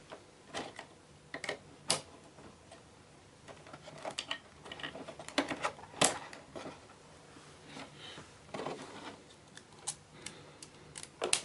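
Irregular plastic clicks and rattles from the Antec Kühler H2O 920's pump head and its mounting bracket and screws being handled and fitted. The sharpest clicks come about 2 s and 6 s in.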